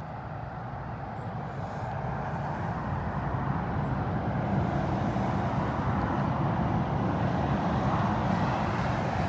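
A steady motor-vehicle rumble that swells over the first few seconds and then holds at a constant level.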